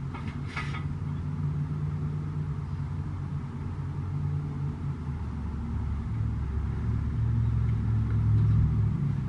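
A steady low rumble with a droning hum that shifts in pitch and swells louder near the end, with a brief rustle about half a second in.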